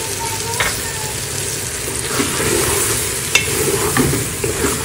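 Chana dal, tomatoes and bottle gourd cubes sizzling in oil in an aluminium pressure cooker while being stirred and sautéed with a wooden spoon. A few sharp knocks of the spoon against the pot, the loudest a little over three seconds in.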